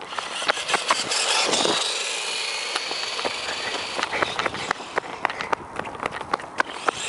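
Traxxas E-Revo electric RC truck's motor whining as it drives away at speed on a gravel path, the high whine building about a second in and fading after about four seconds. Footsteps crunch on gravel throughout.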